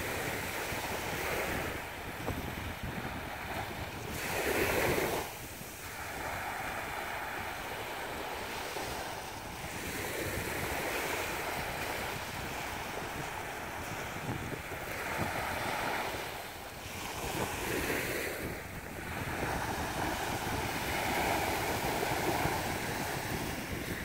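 Small surf breaking and washing up a sandy, shell-strewn beach, swelling and ebbing in slow surges, the loudest about five seconds in. Wind rumbles on the microphone underneath.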